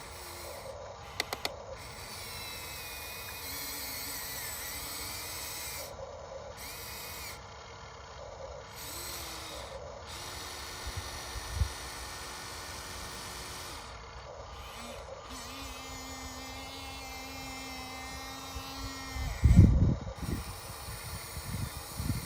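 Small electric motor of an RC excavator's hydraulic pump whining in spells of a few seconds that start and stop as the machine moves, with a few clicks and a loud low thump about twenty seconds in.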